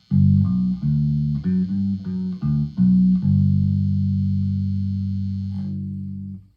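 Lakland PJ electric bass with both pickups and the tone knob full up, played through a small practice amp. It plays a short run of plucked notes, then one long note that rings out and fades until it is cut off near the end. A faint steady hum from the pickups sits underneath.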